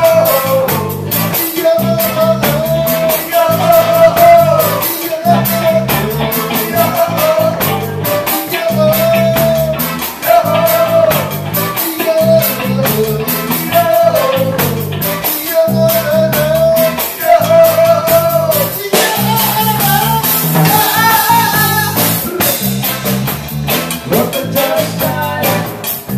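Live reggae band playing, with a man singing the lead over keyboard, guitar, bass and drums in a steady groove.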